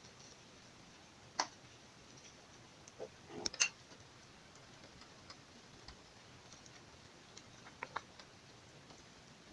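Coconut milk with sago pearls bubbling in a pot at the boil: a faint steady hiss with scattered sharp bubble pops, the loudest a quick cluster about three and a half seconds in and two more near the end.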